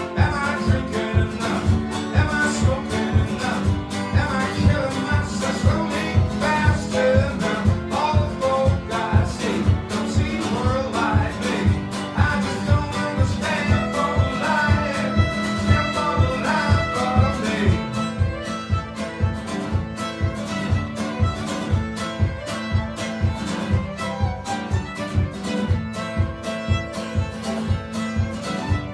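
Instrumental break of a live folk song: acoustic guitar strumming a steady beat while a fiddle plays the melody over it.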